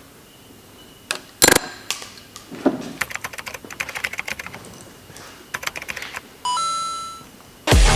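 Quick clicking and clinking of hand tools and bolts on a Subaru EJ257 engine being taken apart, with a sharp knock about a second and a half in and a short ringing tone near the end.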